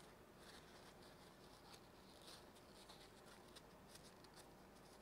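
Near silence, with faint soft rubbing of an alcohol-dampened tissue being wiped over a small aluminium laser-diode housing.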